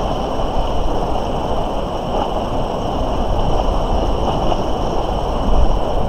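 Steady rushing noise of the river flowing past, mixed with wind rumbling on the microphone, and faint steady high tones above.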